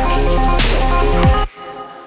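Electronic background music with a steady deep bass and falling, swept drum hits, cutting off suddenly about one and a half seconds in and leaving a few quieter fading notes.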